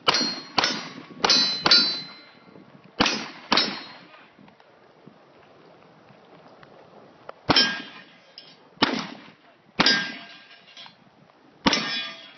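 Glock pistol shots, each hit ringing off a steel target: ten in all, a fast string of four, then two, then four more spaced out after a pause.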